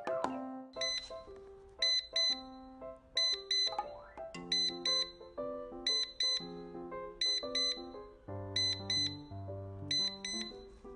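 Digital alarm clock beeping: high-pitched electronic beeps in quick groups of four, a group about every second and a bit, over background keyboard music.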